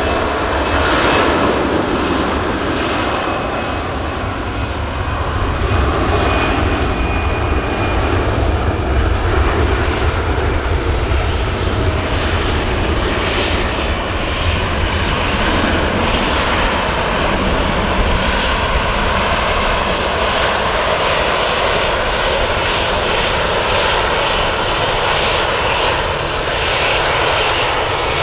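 Airbus A320's jet engines at takeoff power, a loud, steady roar with a heavy low rumble that turns rougher and crackling in the second half.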